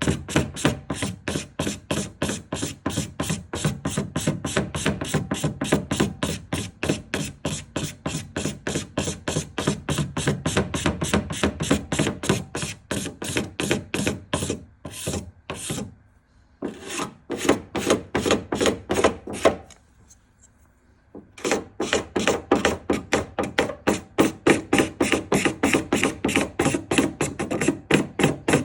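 Hand sanding of a paint run on car bodywork: quick back-and-forth rasping strokes, about four a second, stopping briefly twice past the middle.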